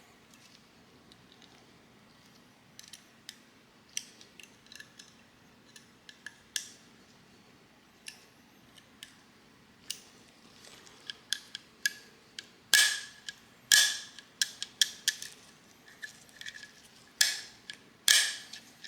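Irregular sharp metallic clicks and taps from a freshly reassembled 3D printer extruder being worked by hand, some with a short ring. They are sparse at first and come louder and closer together in the second half.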